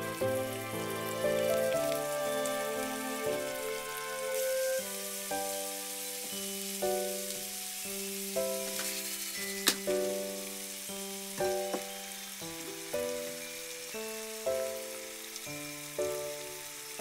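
Bacon, garlic and king oyster mushroom sizzling as they fry in olive oil in a nonstick frying pan, the sizzle growing stronger about five seconds in, with one sharp click a little past halfway. Gentle background music of sustained melodic notes plays over it.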